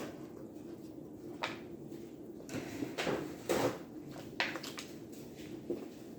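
Quiet eating and handling sounds from a chicken sandwich: chewing with a few short rustles and knocks, the loudest about three and a half seconds in.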